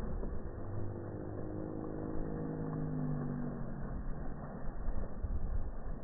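A motor vehicle's engine passing by, a low hum that comes up about half a second in and fades out after about four seconds, dipping in pitch as it goes. Underneath runs the steady splash of a water fountain.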